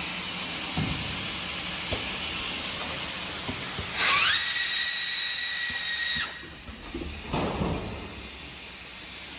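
A12T hot air welding machine running: a steady hiss of the hot air blast, joined about four seconds in by a motor whine that rises quickly in pitch, holds steady for about two seconds, then cuts off, leaving a quieter hiss.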